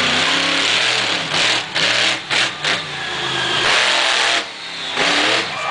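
Monster truck engine revving hard, with the throttle blipped several times in quick succession about a second and a half in.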